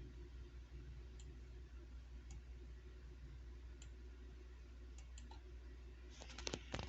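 Faint, scattered clicks over a steady low hum, then a quick run of louder clicks near the end.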